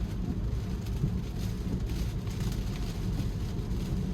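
Steady low road and tyre rumble heard inside a Tesla's cabin while driving in a rainstorm, with rain hitting the car.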